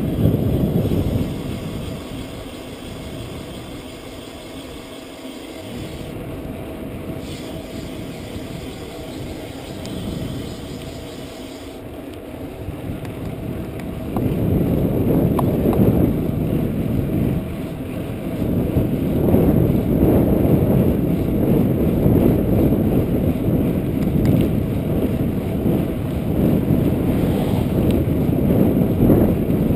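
Low, steady rumble of wind on a chest-mounted action camera and mountain bike tyres rolling on asphalt while riding. The rumble gets noticeably louder about halfway through.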